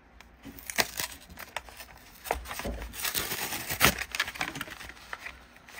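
A toy car's cardboard-and-plastic blister card being torn open by hand: the card backing ripping and the plastic blister crackling, an irregular run of sharp snaps and crinkles that grows busier about two seconds in.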